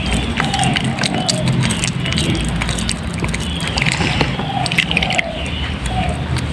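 Soaked, mushy bar soap being squeezed and lathered by hand, with wet squelching and many small crackling clicks over a steady low hum.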